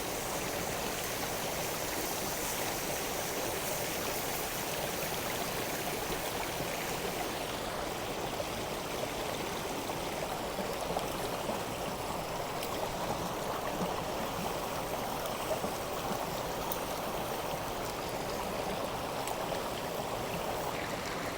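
Steady rush of a river running high and fast, with a few faint ticks.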